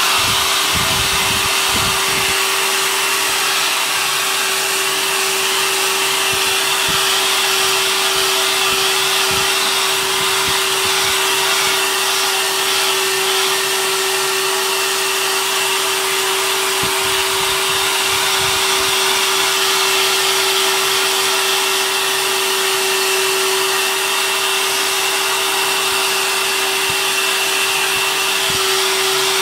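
A very old hair dryer, just switched on, running steadily: a rushing hiss of air over a constant motor hum.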